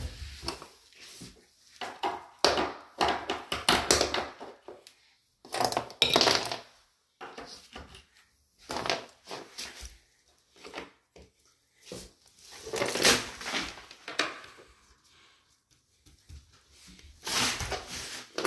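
Irregular knocks, clatter and scraping from a white cabinet's panels and loose metal hinges being handled, coming in short bursts with brief quiet gaps.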